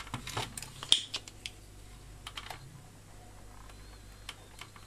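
Scattered light clicks and taps, the loudest about a second in, from a soldering iron tip and a hand-held desoldering pump being worked against a solder joint on a circuit board.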